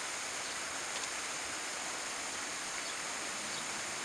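Steady outdoor ambience: an even, continuous hiss with a constant high-pitched band over it.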